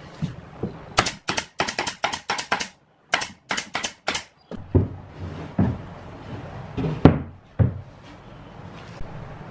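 Pneumatic brad nailer firing nails into plywood edges: a quick run of sharp shots about a second in, a short pause, then a few more, roughly a dozen in all. Several dull wooden knocks follow as the plywood panels are handled.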